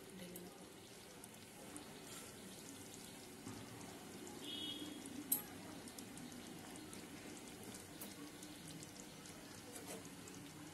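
Thick chicken curry gravy simmering in a pan, a faint bubbling with scattered small pops over a low steady hum, and one sharp click about five seconds in.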